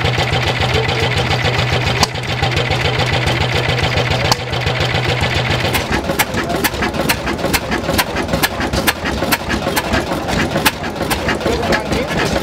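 A small stationary engine running steadily with an even beat. About six seconds in it gives way to a large old Deutz E10 stationary engine with big flywheels, running slowly with sharp, regular ticks about three times a second.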